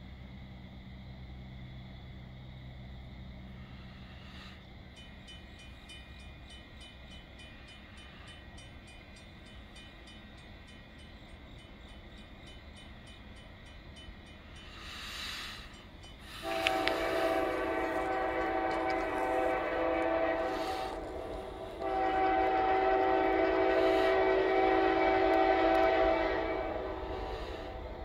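Diesel locomotive air horn on an approaching freight train, sounding a chord of several notes in two long blasts from about halfway through. These are the opening long blasts of the long-long-short-long grade-crossing signal. Before them there is only a faint distant rumble.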